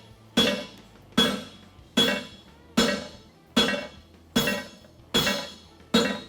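Farrier's hammer striking a 5/8-inch square steel bar in a blacksmith's tooling block. Eight even blows land about one every 0.8 s, each ringing out and dying away before the next.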